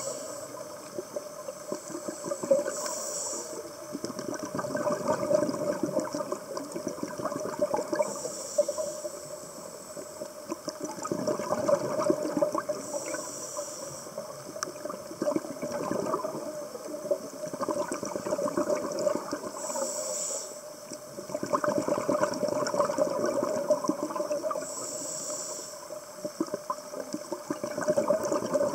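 Scuba diver breathing through a regulator, heard underwater: a short hiss on each inhale, then a few seconds of gurgling exhaled bubbles, repeating about every five to seven seconds over a steady hum.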